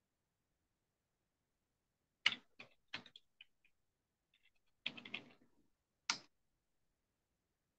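Computer keyboard typing: quick clusters of key clicks as a command is typed, then one separate keystroke a little after six seconds in, the Enter key sending the command.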